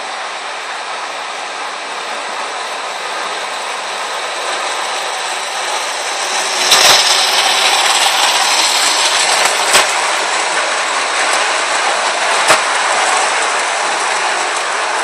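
Ace O gauge A4 model locomotive and its coaches rolling over three-rail track, a steady rushing rumble that grows louder as the train comes close, with three sharp clicks.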